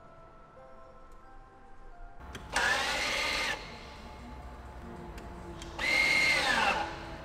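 Mercedes-AMG GLC 63's 4.0-litre twin-turbo V8 running, revved twice, each rev held about a second before falling back. Background music runs at the start.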